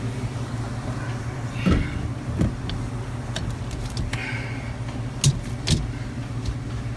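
A steady low mechanical hum, with a few sharp clicks and knocks, the loudest two close together near the end.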